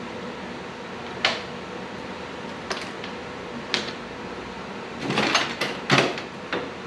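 Hand tools clinking on metal as a wrench works the bolts of a motorcycle's rear brake line stay: three separate sharp clinks, then a cluster of louder clattering knocks about five seconds in. A steady hum runs underneath.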